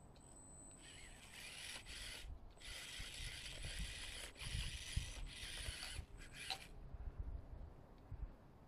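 Small electric motor and gear drivetrain of a 1/18-scale Traxxas TRX-4M RC crawler whirring in a few short bursts of throttle as it crawls, stopping about two-thirds of the way through.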